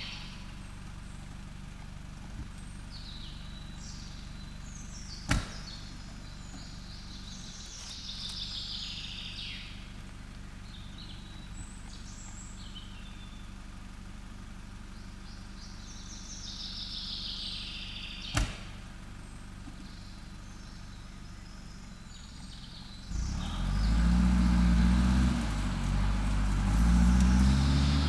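Nissan pickup's engine idling steadily while birds sing, with two sharp clicks. About 23 s in the engine revs hard, its pitch rising and falling, as the truck climbs a steep, muddy slope.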